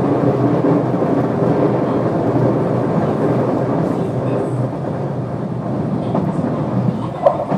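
JR West 221 series electric multiple unit running on rails: a steady rumble of wheels and running gear that eases slightly, with a couple of short knocks near the end.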